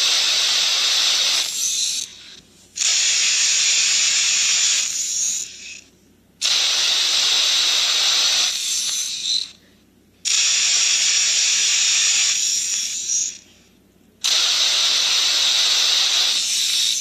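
Two phones running the Talking Carl app echo each other's sound back and forth, heard as four loud hissing bursts of two to three seconds each with short gaps between them.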